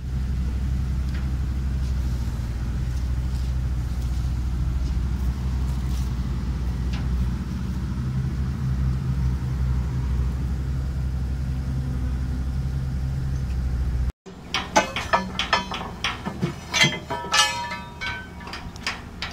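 Machinery running with a steady low rumble. After a sudden cut about fourteen seconds in, there is a run of irregular sharp metal clanks and knocks, some of them ringing, as a jaw crusher's steel side plate is worked loose.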